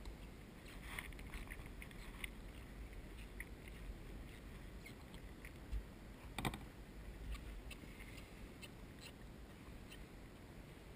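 Water lapping and trickling against a sit-on-top kayak's hull, with scattered small drips and clicks and one sharp knock about six and a half seconds in.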